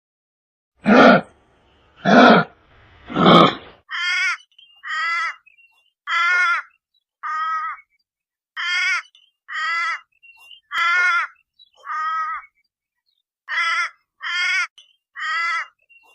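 Kangaroo calling: three harsh, breathy calls in the first four seconds, then a run of about a dozen short, pitched, wavering calls, roughly one a second.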